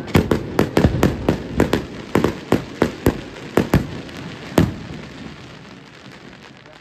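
Aerial firework shells bursting in quick succession, a sharp bang about every quarter to third of a second, the last strong bang about four and a half seconds in. After that the bursts stop and a fainter crackling trails off.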